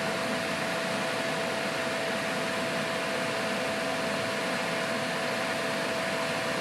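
Steady whir of a small electric fan, a constant hiss with a faint steady hum tone running through it.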